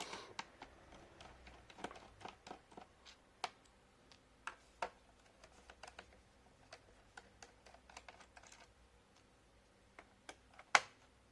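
Scattered small clicks and taps of a screwdriver and loose screws against a laptop's plastic bottom case as its screws are taken out, with one sharper click near the end.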